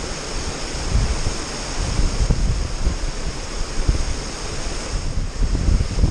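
Water rushing over a lake spillway in a steady wash, with wind buffeting the microphone in uneven low gusts.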